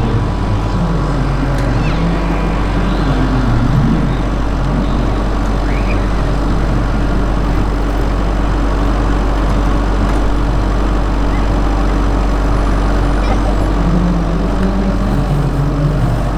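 Radio-controlled scale Bell 230 model helicopter running steadily: a constant motor whine over a low rotor drone.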